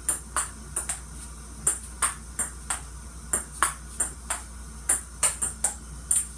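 Ping pong rally: a ping pong ball clicking back and forth off the paddles and the table, a run of sharp clicks at about two to three a second.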